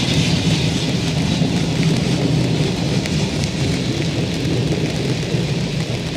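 Steady rain falling, with scattered drop ticks over a continuous low rumble.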